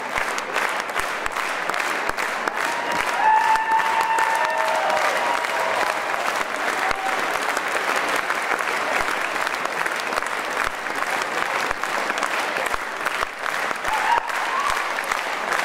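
Concert-hall audience applauding: dense, steady clapping.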